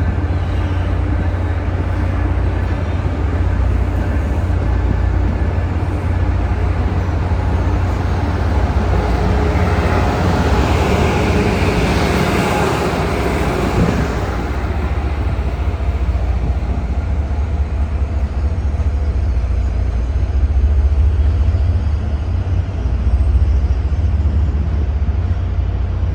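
Amtrak Acela Express train running past, its noise swelling to a peak about twelve seconds in and then fading, over a steady low rumble.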